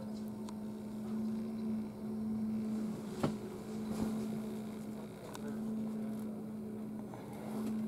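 A steady low hum, with a few light clicks and knocks.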